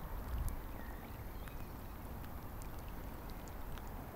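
Lake water lapping quietly, with uneven low wind rumble on the microphone and a few faint ticks.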